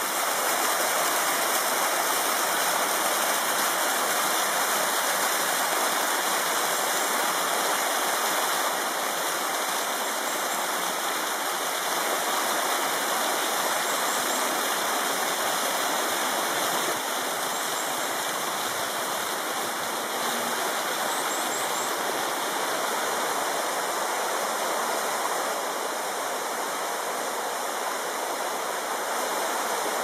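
Mountain stream water rushing down a rocky cascade and small waterfall: a steady rush of water.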